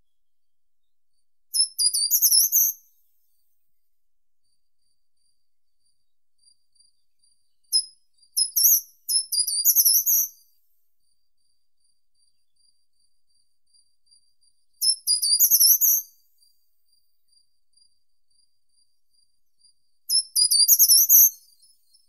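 Short-toed treecreeper singing: four short, high-pitched song phrases of about a second each, spaced several seconds apart. The second is led in by a few separate thin notes.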